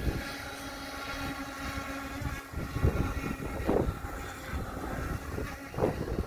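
Radio-controlled speedboat's motor running at a steady pitch as the boat races and turns across the water, with a few brief gusts of wind on the microphone.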